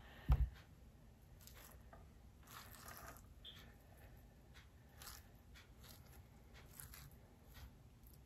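A low thump about half a second in, then faint, scattered wet scraping as a metal spoon scoops the seeds out of a halved papaya.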